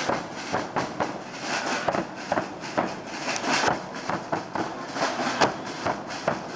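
A group of bombos, large rope-tensioned Portuguese bass drums, beaten together with sticks in a busy, driving rhythm of many strikes a second.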